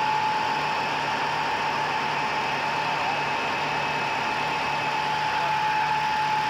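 GIDUE MASTER Combat flexo label press running at a steady speed: an even mechanical hum and hiss with a constant whine.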